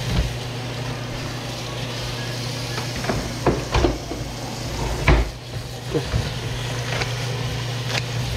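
Tap water running steadily from a kitchen faucet into a plastic colander of sweet potato leaves as hands rinse them. Several sharp clicks and knocks from about three seconds on as the leaves are handled and cut.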